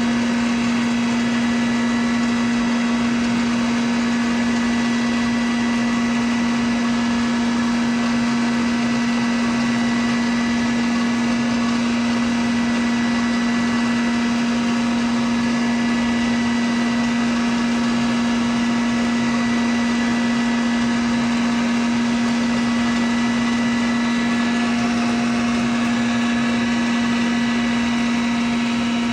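Rice husk and bran grinding machine running steadily, a continuous mechanical whir over a strong, unchanging hum.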